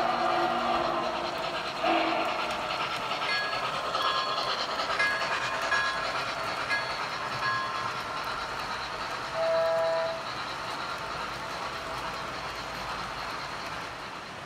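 Sound system of an MTH O-gauge 2-8-0 steam locomotive model blowing its whistle. The whistle chord ends just after the start, with a short toot about two seconds in and another about nine and a half seconds in, over the steady rolling clatter of freight cars on three-rail track.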